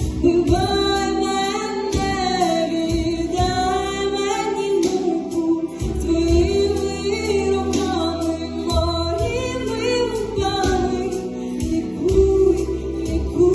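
A song: voices singing a melody over instrumental accompaniment with a steady beat.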